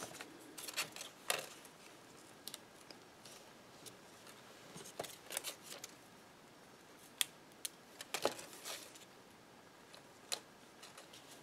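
Scattered light clicks and paper rustles as cardstock poinsettia leaves are handled and pressed together and glue dots are taken off their roll and backing strip.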